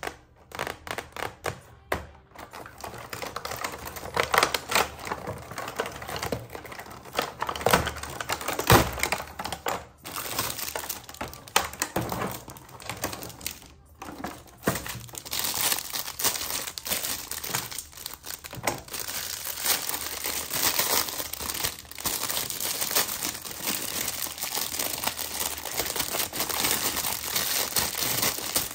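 Plastic and paper packaging crinkling and rustling as it is handled and opened, with many quick clicks and crackles.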